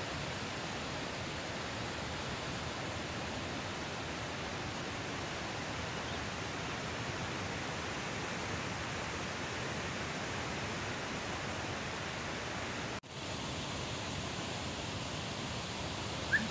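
Steady rush of muddy floodwater, an even, unbroken noise with a brief break about thirteen seconds in.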